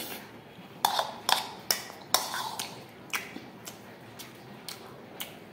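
Close-miked eating sounds: sharp, wet mouth clicks and smacks of chewing, with a metal spoon tapping a ceramic bowl. There are several strong clicks in the first two seconds, then fainter ticks about twice a second.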